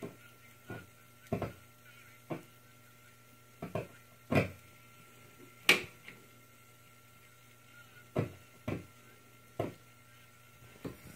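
About a dozen scattered clicks and light knocks at irregular intervals from hands working an old record-changer turntable, over a faint steady hum.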